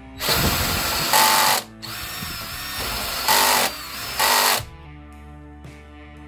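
Cordless drill running a Forstner bit into wood. The motor works under load for about four and a half seconds, with three louder surges, the last just before it stops.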